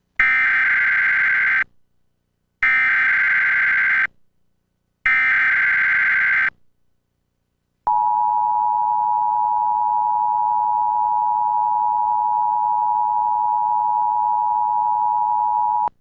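Emergency Alert System header: three short bursts of SAME digital data tones, each about a second and a half long with short gaps between them, then about eight seconds of the steady two-tone EAS attention signal, which cuts off suddenly. It marks the start of a Required Monthly Test alert.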